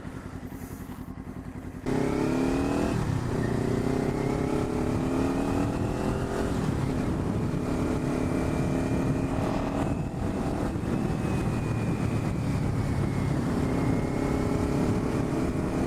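Motorcycle engine idling, then pulling away about two seconds in and accelerating hard, its pitch climbing and dropping back with each upshift, three or four times.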